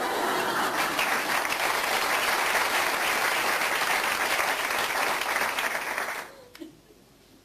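Audience applauding: a steady round of clapping that dies away about six seconds in.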